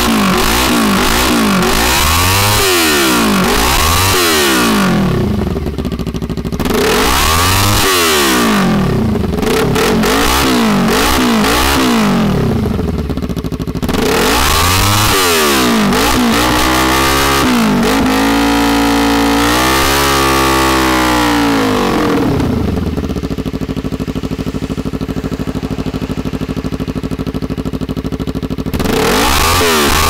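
Kawasaki Ninja 300's parallel-twin engine, very loud through a straight pipe with the muffler removed, revved in repeated quick throttle blips. The revs are held up for a few seconds in the middle, then the engine settles to idle before more blips near the end.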